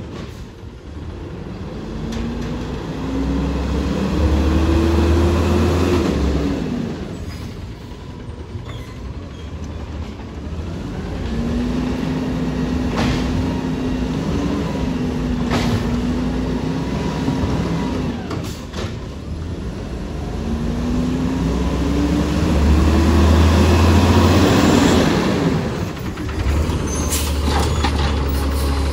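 Automated side-loader garbage truck working its route: the diesel engine revs up and falls back in long swells as it drives the hydraulic arm that lifts and empties trash carts. Several sharp bangs and air-brake hisses come in between.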